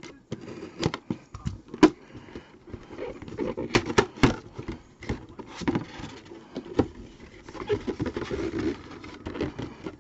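Hands handling and opening trading-card packaging: irregular sharp clicks and taps with rustling in between.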